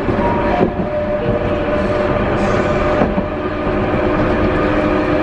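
Hankai Type 161 tram car running along the track, heard from inside the car: steady running noise with a steady whine at several pitches, and a couple of brief knocks from the wheels on the rails.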